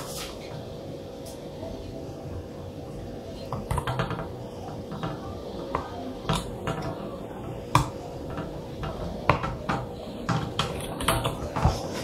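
Hard plastic ceiling fan parts clicking and knocking as they are handled and fitted together by hand. The sharp clicks come scattered, with a cluster about four seconds in and several more near the end, over a steady hum.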